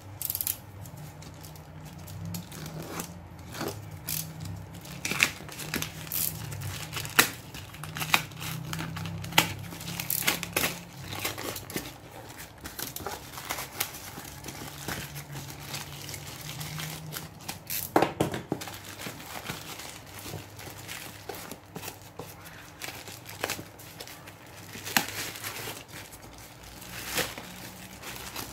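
Plastic courier mailer bag crinkling and tearing as it is cut and pulled open by hand, with many sharp crackles and rustles throughout.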